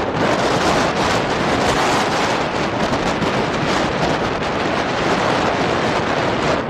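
Loud, steady rushing noise of strong storm wind buffeting the microphone.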